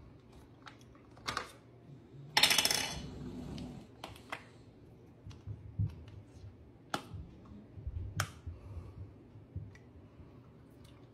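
Scattered clicks and knocks from handling a plastic food processor bowl and lid and a cardboard carton of heavy cream being opened, with one louder scraping rustle about two and a half seconds in.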